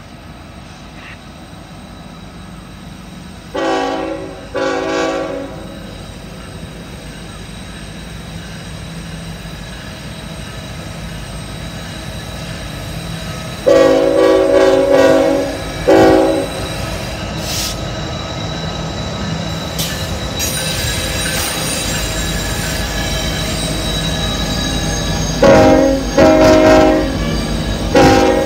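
Norfolk Southern diesel locomotives leading a coal train sound their air horn in three groups: two blasts a few seconds in, a long blast and a short one midway, and three more near the end. The engines' rumble grows louder as they approach and pass, and from about two-thirds of the way through a high wheel squeal from the curve joins in.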